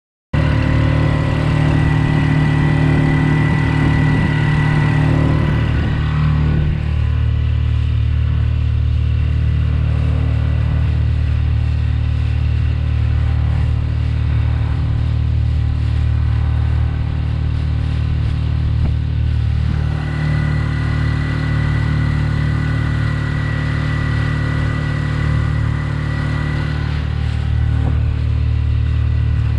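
Honda 4 hp four-stroke outboard motor running steadily at speed, driving a small inflatable boat. The engine note changes slightly about six seconds in and again around twenty seconds in.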